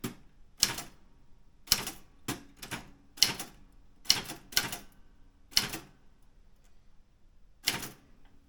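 Daro Optima M16 manual typewriter being typed on slowly: about ten separate key strikes at an uneven pace, with a pause of nearly two seconds before the last strike.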